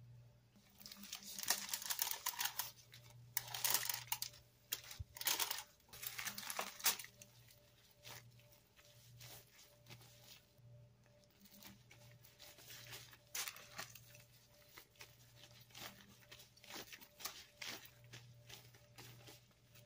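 Aluminium foil crinkling and disposable plastic gloves rustling as hands knead raw ground beef in a foil-lined pan. The crackling comes in dense, louder bursts for the first several seconds, then as a run of softer, separate crinkles.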